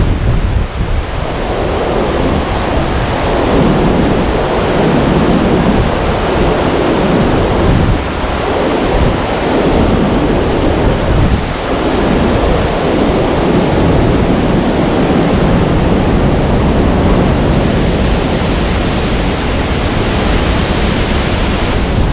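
Storm-force wind gusts blowing hard over the microphone: a loud, continuous rush with rumbling surges that swell and fade every few seconds.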